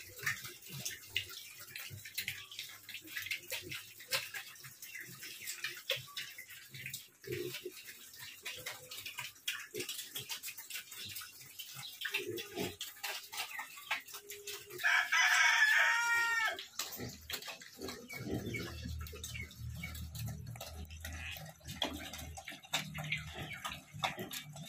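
Pigs eating chopped feed from a wet concrete trough, a steady scatter of small clicks and smacks. About fifteen seconds in, a rooster crows once, the loudest sound, its pitch falling over a second and a half.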